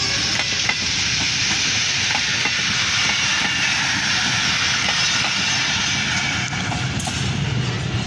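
Passenger train coaches passing close by at speed: a steady rushing rattle of steel wheels on rails.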